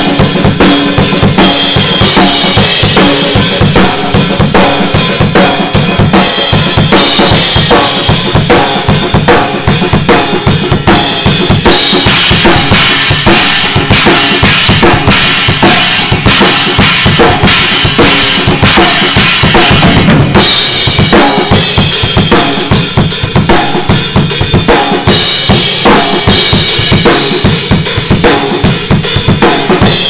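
Rock drumming on a Sonor drum kit: a continuous driving beat of bass drum, snare and cymbals, played hard.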